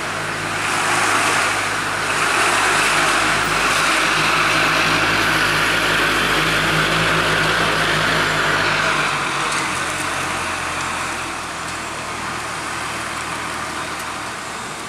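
Traffic climbing a steep hill: cars and trucks passing close by, a steady engine hum with tyre and road noise. It is loudest in the first half and eases off after about nine seconds.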